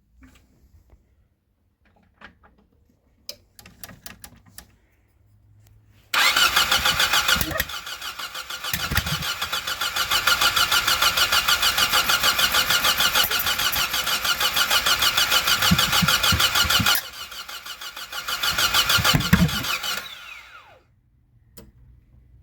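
Starter cranking a freshly rebuilt VAZ classic engine with a 2106 block, about ten seconds of steady rhythmic cranking, then a second shorter attempt, without the engine catching. A few pops come through the cranking: backfires that the owner takes for the distributor being set 180° out.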